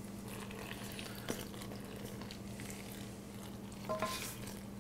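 Wooden spoon stirring water into flour in a stainless steel mixing bowl: a faint scraping rustle as a thin stream of water is poured in, with a single sharp knock about a second in and a short squeak a little before the end. A steady low hum runs underneath.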